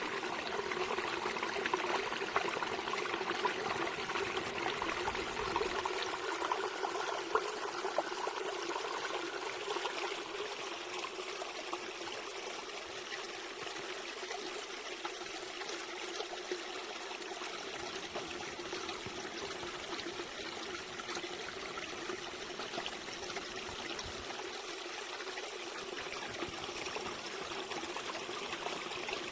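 Water trickling and babbling steadily, like a small stream, with many small splashing ticks.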